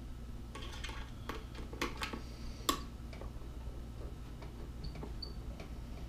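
Irregular light clicks and ticks of a hand screwdriver turning a small stainless screw through a metal mailbox number tag into a pine hive body, with one sharper click midway and fainter ticks after it.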